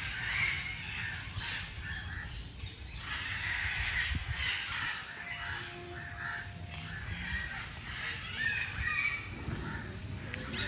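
Many birds calling at once, a busy mix of squawks and chirps, over a steady low rumble.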